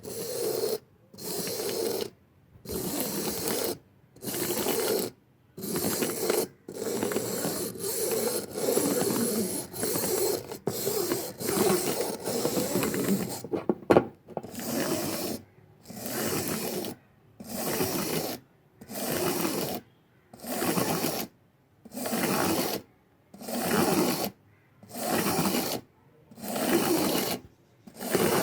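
A hand tool scraping in repeated back-and-forth strokes, a rasping sound about once a second with short gaps between strokes. The strokes run almost together for a few seconds in the middle, and a sharp click comes about halfway through.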